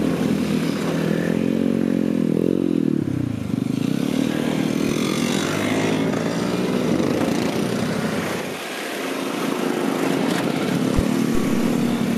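A column of Vespa scooters riding past at low speed, their small engines running together. About two to three seconds in, one scooter's engine note rises and then falls as it passes close.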